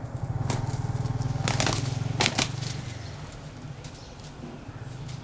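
Roosters fighting: a handful of quick wing flaps and scuffles in dry leaf litter, clustered in the first two and a half seconds. Under them runs a steady low drone, loudest in the first three seconds.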